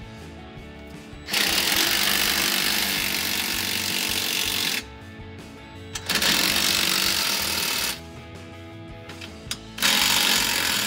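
Cordless impact driver with a 15 mm socket hammering on the exhaust band-clamp nuts in three runs of a few seconds each, snugging the clamps down. Background music plays underneath.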